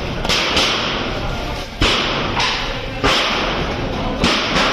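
Fire hose spraying water onto a smouldering heap, a loud steady hiss that surges suddenly every second or so.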